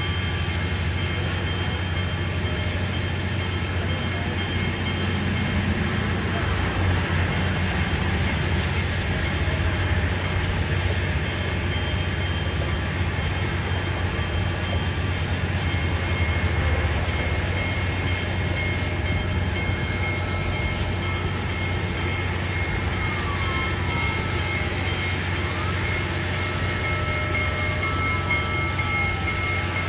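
Union Pacific Big Boy 4014, a 4-8-8-4 articulated steam locomotive, making a steady rumble and hiss. A steady high whine comes in about halfway.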